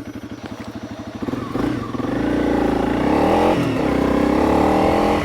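Honda CRF300 Rally's single-cylinder engine ticking over, then revving up as the bike pulls away. The revs dip briefly about three and a half seconds in, then run on steadily.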